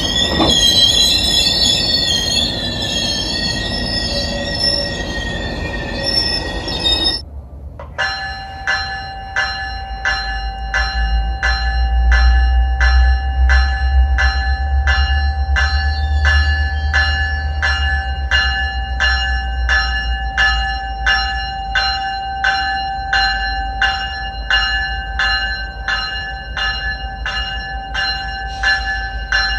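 Train wheels squealing on the rails with high, wavering tones, cut off suddenly about seven seconds in. Then a diesel train's locomotive bell rings steadily, about two strikes a second, over a low engine rumble that swells and eases.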